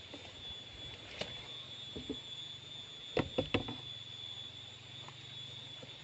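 Steady high-pitched drone of night insects, with a few sharp knocks or taps: one about a second in and a quick cluster of three or four about three seconds in.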